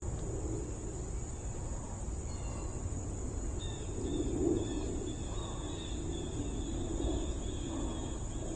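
Steady high-pitched insect chorus over uneven low rumbling noise.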